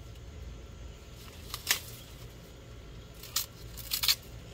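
Short, dry tearing sounds: one about a second and a half in, then two close together near the end, over a low steady rumble.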